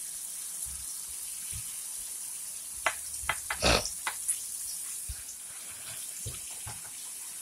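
Catfish pieces deep-frying in a pot of hot oil, giving a steady sizzling hiss. A handful of short clicks and knocks come about three to four seconds in.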